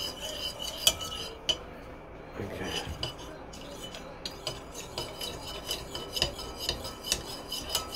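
Metal spoon stirring a cornstarch-and-cold-water slurry in a ceramic bowl, with many light irregular clinks and scrapes against the bowl.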